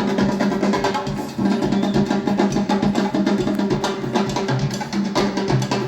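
Music with a drum kit and percussion playing back from a vinyl record on a JVC L-F66 turntable with an Audio-Technica AT3600 cartridge.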